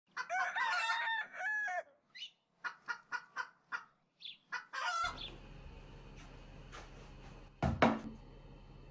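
A rooster crows once, then a run of short clucks. About five seconds in this gives way to a steady low room hum, broken by a single loud thump near the end.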